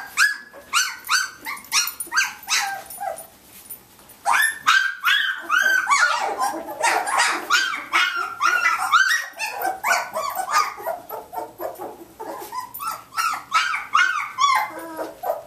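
Samoyeds giving excited high-pitched yips and squeals, several short calls a second that slide down in pitch. The calls thin out briefly about four seconds in, then come thick and overlapping through the middle.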